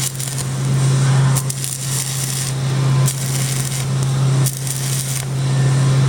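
Stick (arc) welding: the electrode's arc crackling and hissing, breaking off and restriking several times as short bursts of bead are laid to fill a gap. A steady low hum runs underneath.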